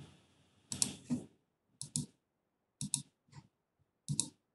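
Clicking at a computer during a video call: short sharp clicks, mostly in quick pairs, about one pair a second.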